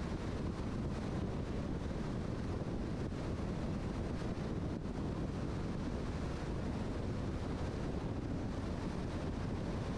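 Steady road and wind noise from a car driving, an even rushing sound with no changes.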